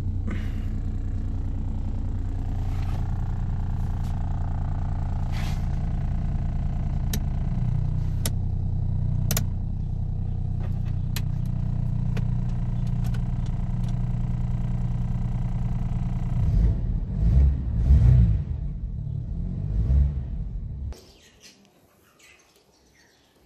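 Engine of a 2003 Daihatsu Storia idling steadily, heard from inside the cabin, with scattered light clicks. Near the end it turns louder and uneven for a few seconds, then the sound cuts off abruptly.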